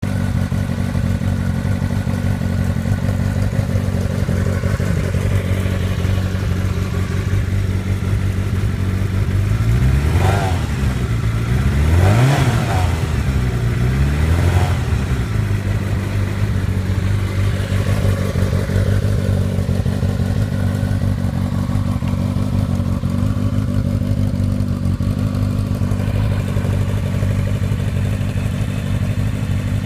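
1983 Kawasaki GPz550's air-cooled inline-four engine idling steadily, its carburettors freshly rebuilt. About a third of the way in, the throttle is blipped three times in quick succession, each rev rising and falling back to idle.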